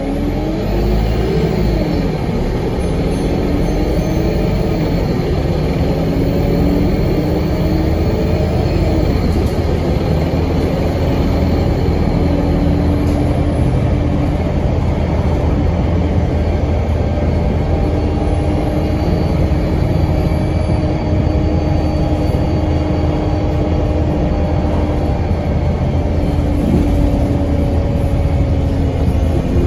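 Alexander Dennis Enviro200 MMC single-deck bus heard from inside the passenger saloon while driving: a steady engine and road rumble. A whine over it rises in pitch as the bus pulls away and picks up speed, then holds steady as it cruises.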